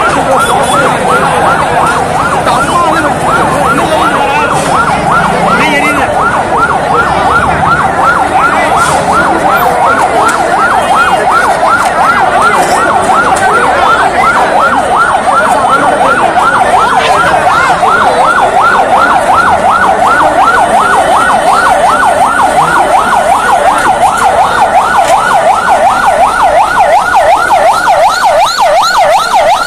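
Ambulance siren in a fast yelp, rising and falling about three to four times a second without a break, loud over the background din.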